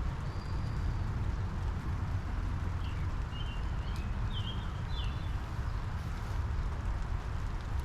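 Steady rain shower hissing over a low steady rumble, with a backyard bird giving a short high call near the start and a run of quick chirps between about three and five seconds in.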